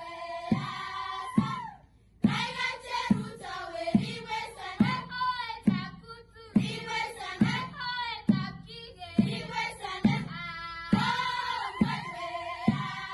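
Background music: a song with sung vocals over a steady drum beat of roughly one beat every second.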